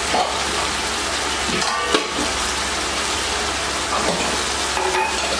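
Mutton liver pieces sizzling and bubbling in a pan with a little liquid, a steady frying hiss.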